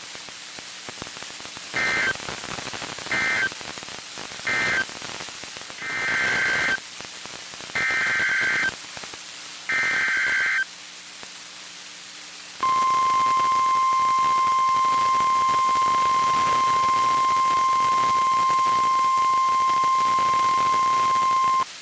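NOAA Weather Radio Specific Area Message Encoding (SAME) data bursts come first: three short buzzy bursts, then three longer ones about two seconds apart, over radio hiss. They are followed by the steady 1050 Hz warning alarm tone, held for about nine seconds, which signals that a warning message is about to be read.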